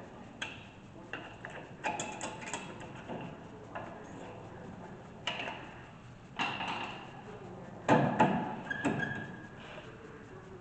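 Irregular metallic clinks and knocks of hand tools against brake caliper parts, with the loudest pair of knocks about eight seconds in.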